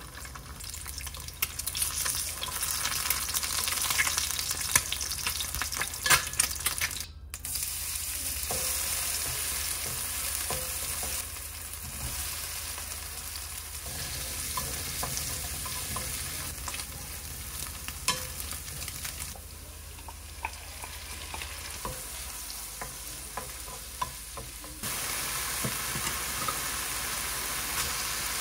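Food frying and sizzling in a nonstick frying pan: first an egg, then diced Spam and green onion, then kimchi and rice. A wooden spatula stirs and scrapes through it with frequent sharp ticks against the pan. The loudness steps up and down several times.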